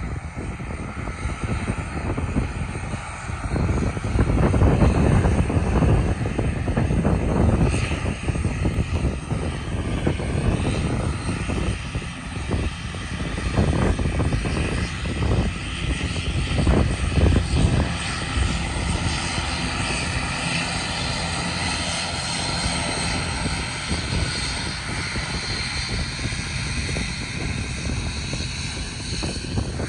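The two Pratt & Whitney PW127M turboprop engines of an ATR 72-600 running as the airliner taxis past. A low, uneven rumble gives way over the last third to a steadier propeller and turbine whine.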